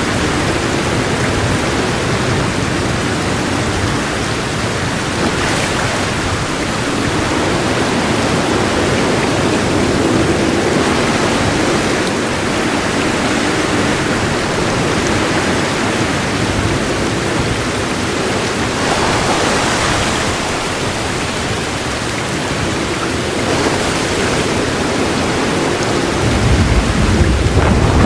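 Heavy rain falling steadily, with a low thunder roll building near the end.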